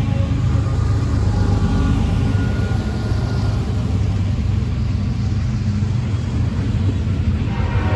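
Norfolk Southern freight train passing close by: the diesel locomotives' engines running as the last units go past, then the steady rumble of loaded freight cars rolling over the rails.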